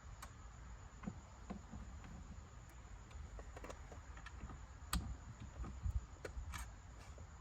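Faint, scattered clicks and light knocks of screws on a Uconnect radio mounting bracket being checked for tightness. The sharpest click comes about five seconds in, with a few more soon after.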